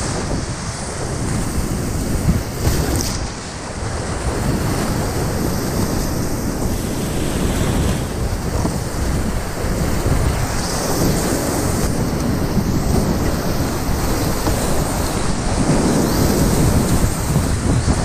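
Loud, steady rush of Class V whitewater rapids heard from a kayak in the current, with water splashing against the boat and buffeting the microphone.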